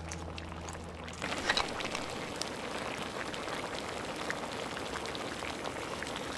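A pot of gegukji, a crab-and-kimchi stew, bubbling at a simmer: a dense crackle of small bubbles and pops that starts about a second in.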